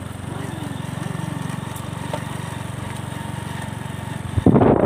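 Motorcycle engine running steadily while riding, a low even pulse. Near the end a sudden loud noise on the microphone breaks in over it.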